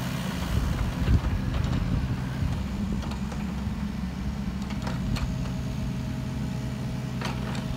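Caterpillar 302.7D CR mini excavator's diesel engine running steadily while the upper structure slews and the boom and arm move. A few light clicks come in the second half.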